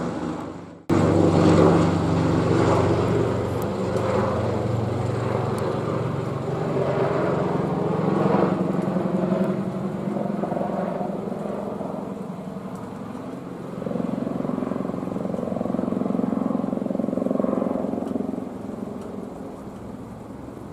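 Airbus H145 twin-turbine helicopter flying past: a steady drone of rotor and turbine noise with a low hum of several even tones. The sound swells again partway through and fades near the end.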